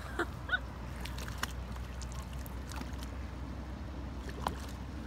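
A hooked catfish splashing and thrashing at the surface at the water's edge, making scattered short splashes and knocks over a steady low rumble. A few short bird calls sound near the start.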